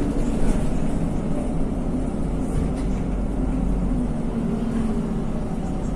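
NefAZ 5299-40-52 city bus underway, heard from inside the passenger cabin: a steady engine drone with road noise, holding an even speed.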